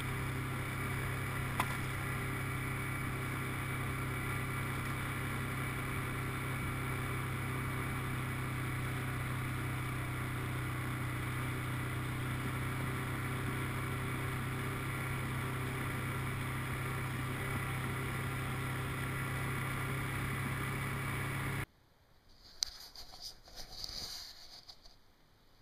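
Vehicle engine running at a steady drone while driving over a rough forest dirt trail. About three-quarters of the way in it cuts off abruptly, leaving quieter handling and rustling noises with a sharp click.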